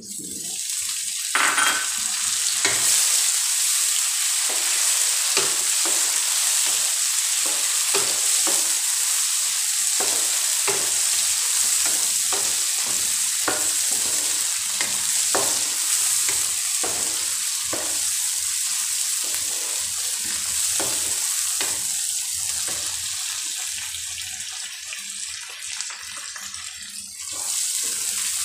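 Chopped tomatoes and onions sizzling in hot oil in a kadai, a steady frying hiss, with a wooden spatula stirring and knocking against the pan in frequent short strokes.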